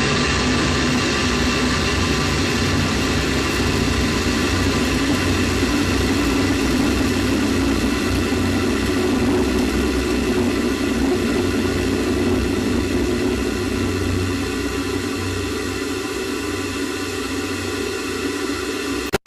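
Space shuttle ascent noise: a steady rumbling roar with several held whining tones above it. It drops out abruptly right at the end.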